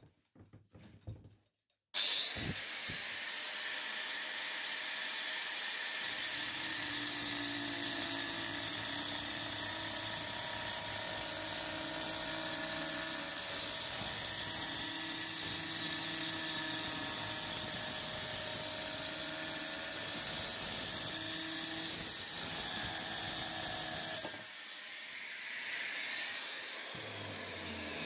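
Angle grinder with a diamond blade starting up about two seconds in and cutting through a floor tile: a steady high whine, with a lower grinding tone coming and going while the blade is in the tile. It is switched off a few seconds before the end and winds down.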